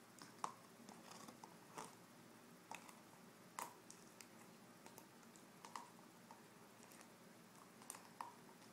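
Siberian husky chewing on a frozen meat treat: irregular sharp clicks and bites, a second or so apart, the loudest about half a second in.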